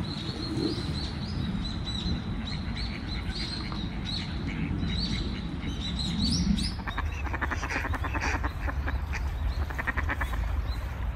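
Small birds chirping in short high notes; from about seven seconds in, ducks on a pond quack in quick rapid calls for a few seconds. A steady low rumble runs underneath.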